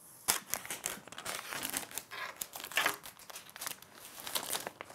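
Thin protective plastic film being peeled off a computer's screen, crinkling and crackling irregularly from about a quarter of a second in.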